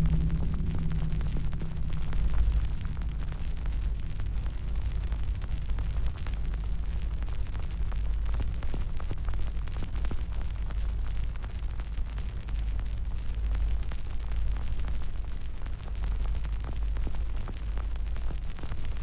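Fire burning with a steady deep rumble and constant crackling. A low pitched drone fades out in the first second.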